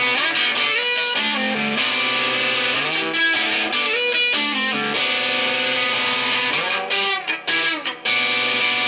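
Electric guitar played through distortion, ringing chords that change every second or so, with a few short choppy stops between about seven and eight seconds in.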